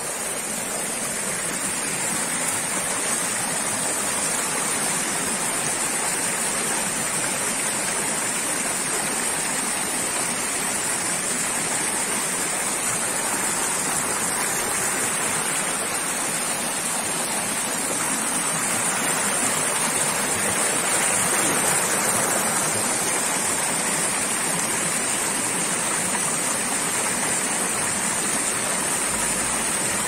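Shallow mountain stream rushing over rocks: a steady rush of water that swells a little about two-thirds of the way through.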